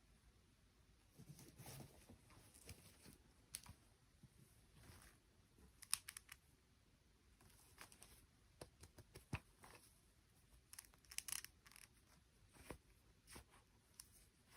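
Faint scattered clicks and short rustles of small plastic toy parts and packaging being handled.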